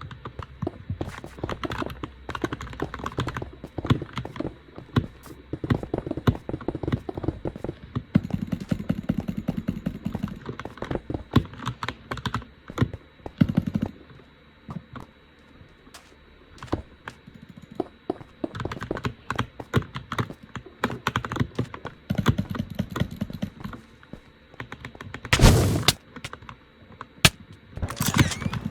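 Computer keyboard keys pressed in quick, irregular runs of sharp clicks, with one louder, brief burst of noise about 25 seconds in.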